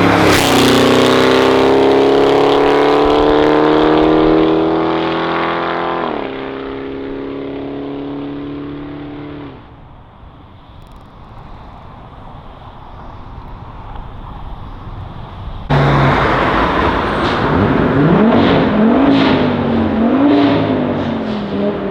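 A sports car accelerating hard past, its exhaust note climbing steadily, dropping once about six seconds in as it shifts up, then fading away. About sixteen seconds in a second car's engine comes in suddenly, revving up and down with sharp exhaust pops and crackles.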